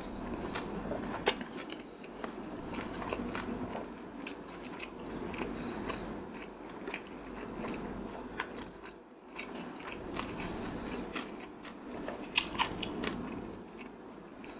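Close-miked chewing of a mouthful of rice and pekasam (fermented meat), with many small wet clicks and crunches throughout.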